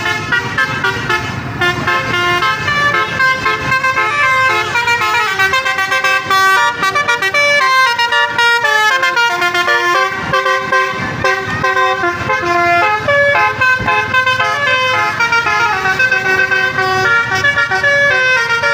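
An Indonesian bus 'telolet' horn playing a long multi-note melody, its tones stepping up and down in quick succession. A low rumble runs underneath in the first few seconds.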